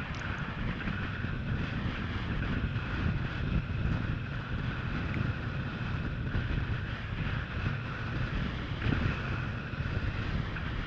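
Wind buffeting a GoPro's microphone while a wingfoil board rides across the water, a steady rumbling rush with a faint steady high hum underneath.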